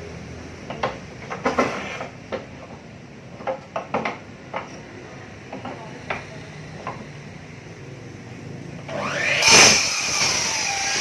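Knocks and clicks of the mini miter saw's table and workpiece being handled, then about nine seconds in the Rakuten saw's direct-drive electric motor starts with a rising whine and runs at full speed, some 5,000 rpm.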